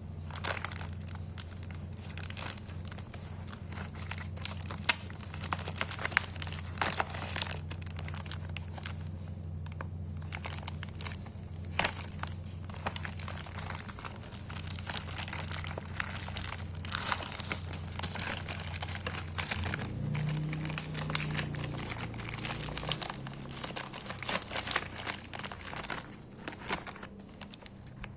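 Packaging crinkling and tearing as a parcel is unwrapped by hand, with irregular sharp crackles throughout.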